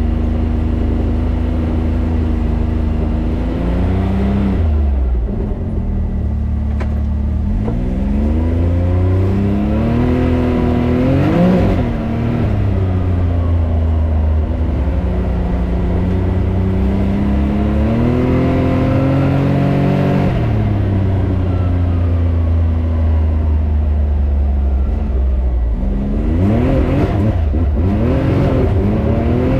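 Can-Am Maverick X3 Turbo RR side-by-side engine running, its revs climbing slowly and dropping back several times.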